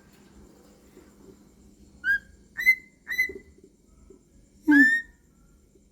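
Cockatiel giving short whistled chirps: three quick ones about a second apart, then a longer, louder rising call near the end.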